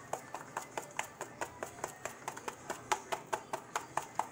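Metal spoon stirring and scraping blended strawberry purée through a fine-mesh stainless-steel strainer, clicking against the mesh in a quick steady rhythm of about five strokes a second.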